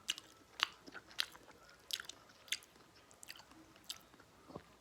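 Close-miked chewing of food, with short wet mouth clicks and smacks coming roughly every half second.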